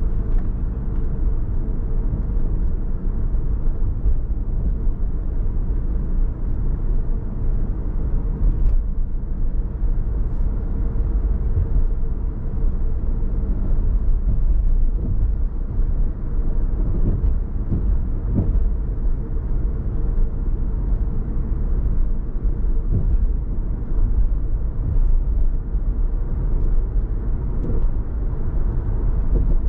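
Steady low rumble of a car driving on city streets: engine and tyre road noise, with a few brief knocks about halfway through.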